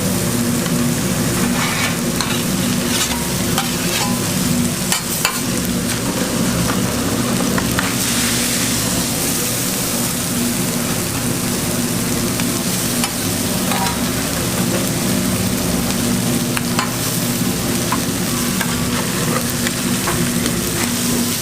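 Food frying and sizzling on a hot griddle, with scattered clicks of utensils over a steady low hum.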